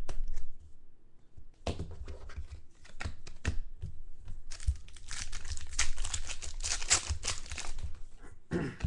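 Foil trading-card pack wrapper being torn open and crinkled by hand. Scattered rustles and clicks come first, then a dense stretch of crinkling in the second half.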